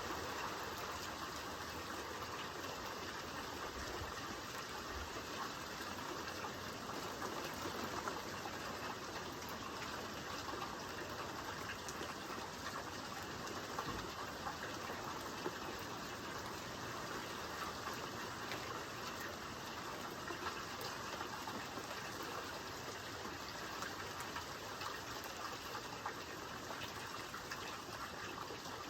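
Steady rain falling, an even rushing hiss with scattered drop ticks.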